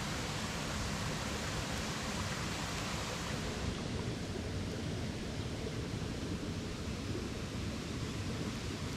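Steady rush of running water, an even noise with no distinct events.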